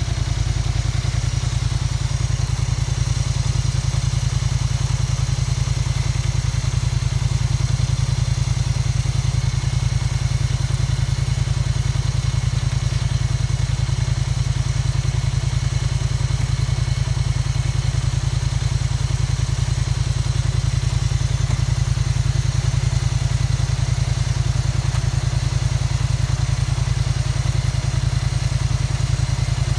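ATV engine idling steadily close by.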